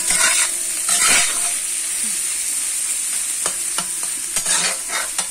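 Tofu strips sizzling steadily in hot oil in a wok while a metal spatula scrapes and turns them in several short strokes, the loudest about a second in and a quick run of them near the end.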